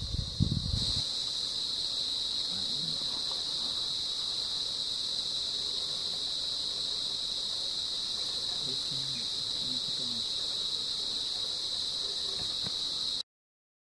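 Steady, high-pitched chorus of insects trilling, which cuts off suddenly near the end. A low rumbling is heard in the first second.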